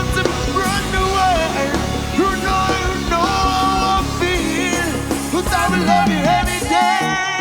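Live band playing an upbeat song: bass and drums under a bending melodic lead line, with the bass pattern changing near the end.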